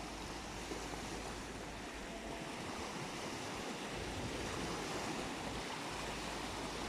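Sea waves breaking and washing on the shore, a steady surf noise with gentle swells, with some wind buffeting the microphone.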